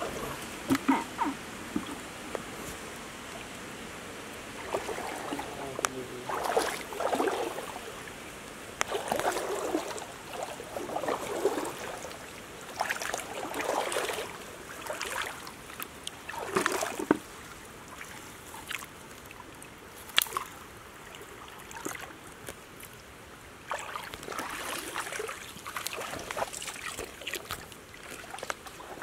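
Feet wading through a shallow stream, with irregular sloshing splashes every second or two over a steady trickle of running water.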